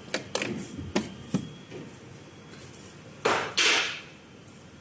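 Several sharp metallic clicks and knocks from a hand handling a steel automatic screw feeder, then two short loud bursts of hiss close together about three seconds in.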